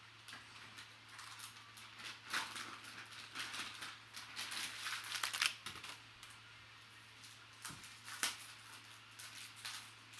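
A trading-card box and its packaging being opened and handled: irregular crinkling, rustling and clicking of plastic wrap and cardboard in uneven flurries. A low steady hum runs underneath.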